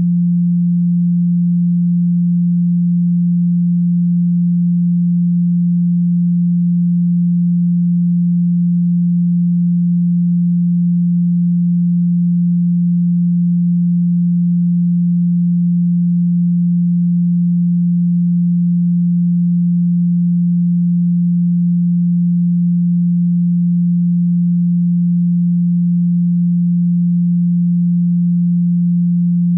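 A single steady low hum of one unchanging pitch: a pure 174 Hz sine tone, the Solfeggio 'healing frequency'.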